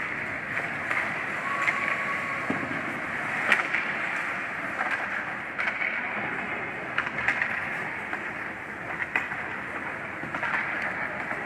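Ice hockey skate blades scraping and carving on rink ice, with scattered sharp clacks of sticks hitting the puck and ice.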